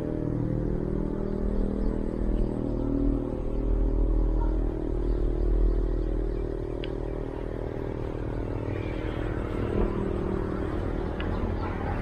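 A motor engine running steadily with a low drone that wavers a little in pitch. Two faint clicks come through, one about halfway in and one near the end.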